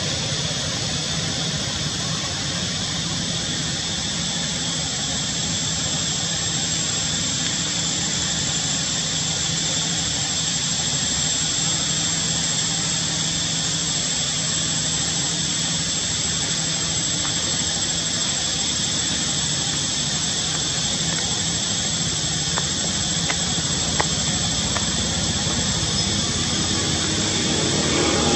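A steady, even background hiss with a thin, unchanging high whine above it, and one small click near the end. No animal calls stand out.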